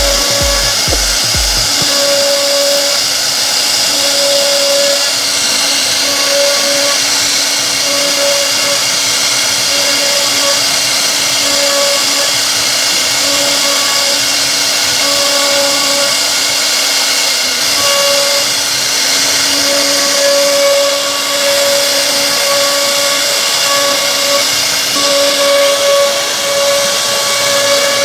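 CNC wood router spindle cutting a solid wood door: a loud, steady hiss with a whine that comes and goes as the cut goes on.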